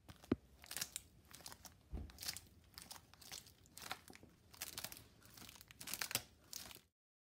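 Cardboard armour plates being handled: irregular crinkling and clicks as the riveted cardboard tassets are touched and lifted, with a sharp click about a third of a second in and a low thump about two seconds in.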